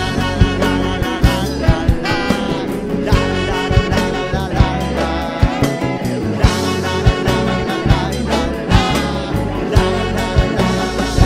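Live Latin fusion band playing: trumpet and saxophone lines over keyboard, bass guitar and a steady drum beat.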